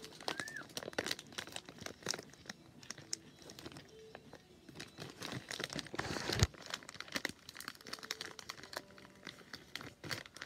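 Crinkling and crackling of plastic packaging being handled, with a louder rustle a little after six seconds in.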